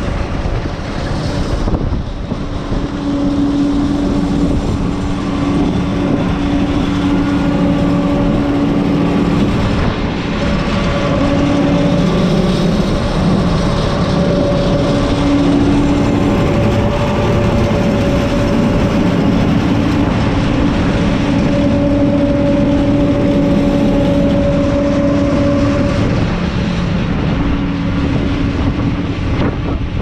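John Deere 9610 combine running under load while harvesting oats. It makes a loud, steady machinery din, with a pitched hum that fades in and out.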